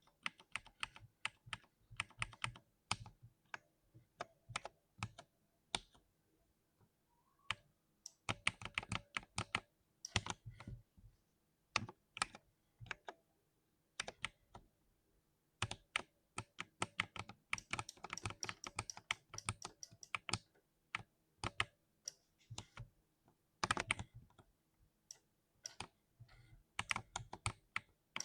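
Typing on a 60% keyboard: quick runs of sharp keystrokes in bursts, broken by short pauses.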